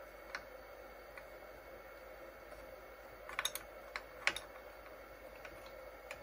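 Light metallic clicks of two thin steel wrenches on a router's collet nut as it is tightened: a few scattered single clicks, a quick cluster about three and a half seconds in, and the sharpest click just after four seconds.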